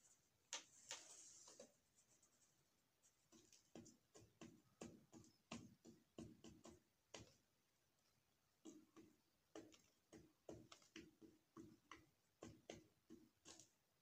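Faint, irregular tapping and clicking of doves pecking at seed on a wooden cage floor, in quick runs of taps with short pauses between them.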